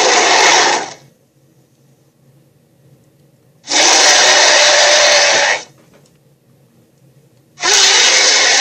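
Cartoon monster roar sound effects: harsh, noisy roars repeated with pauses between them. One ends about a second in, another lasts about two seconds in the middle, and a third starts near the end.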